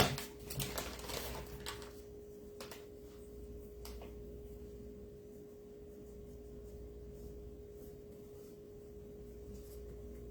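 A steady low electrical hum with one sharp knock right at the start, a few lighter clicks just after, and two faint taps a few seconds in, from craft painting at a tabletop.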